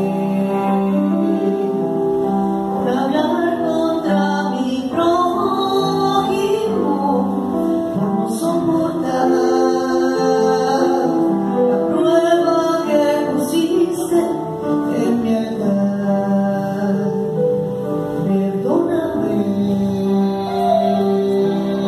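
A woman singing a Catholic worship song into a microphone over sustained electronic keyboard chords.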